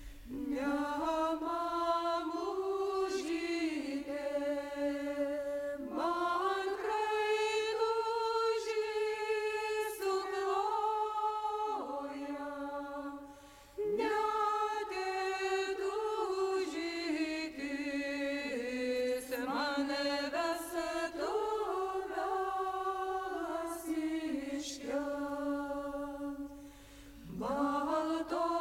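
Folk ensemble voices singing a Lithuanian folk song in long held phrases, breaking off briefly about halfway through and again near the end.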